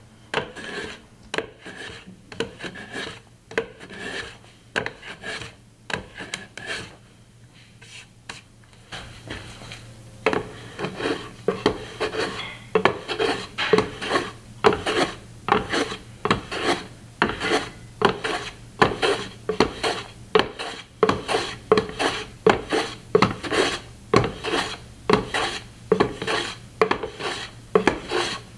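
Small hand plane shaving the end grain of dovetail pins and tails flush on an avodire box corner, one scraping stroke after another. The strokes are few and quiet at first, then after about ten seconds settle into a steady rhythm of roughly two strokes a second.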